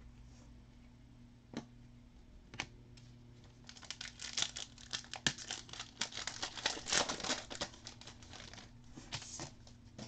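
Foil wrapper of a Panini Crusade trading-card pack crinkling and tearing as it is opened by hand: a couple of single clicks first, then a dense run of crackles through the middle and a short burst near the end.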